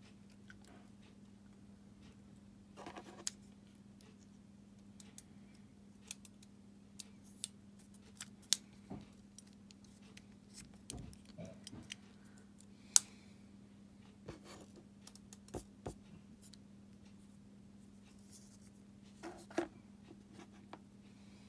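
Small plastic and metal parts of a Fiat 500 flip key fob being handled and fitted together: scattered faint clicks and taps, the sharpest about 8 and 13 seconds in, over a steady low hum.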